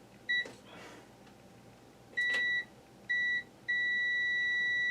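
Multimeter continuity tester beeping as its probes touch the fan switch's contacts and wiring: a brief chirp, two short beeps, then a long steady beep that shows a closed, conducting path.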